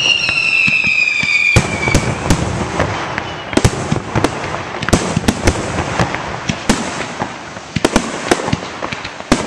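Fireworks display: a dense run of sharp bangs and pops from aerial shells bursting overhead, at uneven spacing. A whistle falls slowly in pitch through the first two seconds.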